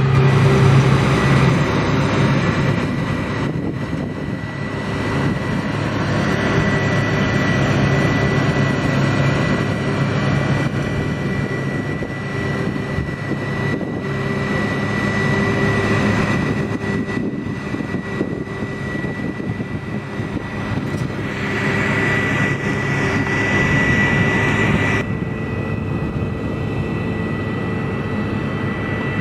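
New Holland combine harvester running while harvesting winter barley: a steady engine drone with a thin, steady high whine over it. The sound changes near the end, as if heard from a closer position.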